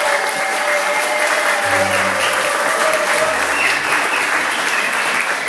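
Audience applauding, with music playing under it.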